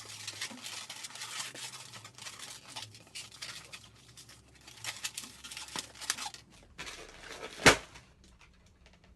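Scratchy rustling and tearing in a small room, many quick crackles, with one sharp knock near the end.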